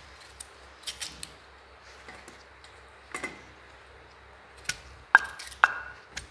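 Kitchen knife cutting through raw unpeeled potatoes held in the hand, with scattered sharp clicks and a few metallic clinks with a short ring against a steel bowl, the loudest two near the end.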